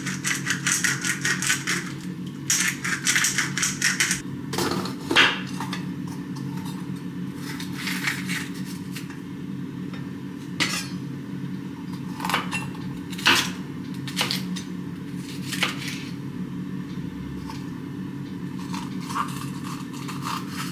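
A hand-twisted spice grinder clicking rapidly in two bursts, then scattered knocks of a knife against a wooden cutting board as a yellow bell pepper is cut, over a steady low hum.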